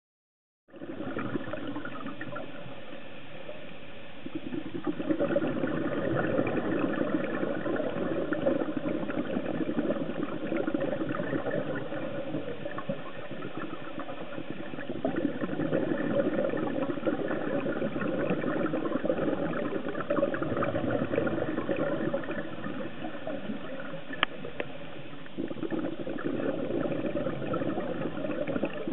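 Underwater sound on a scuba dive: a steady bubbling, crackling wash that starts about a second in and swells for several seconds at a time, as a diver's exhaled regulator bubbles do.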